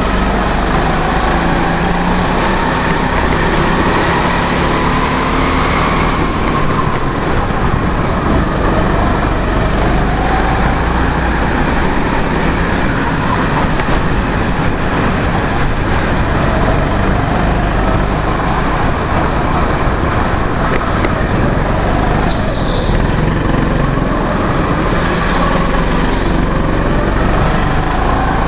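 Go-kart engine running continuously under way, its pitch rising and falling every few seconds as the kart speeds up and slows through the corners.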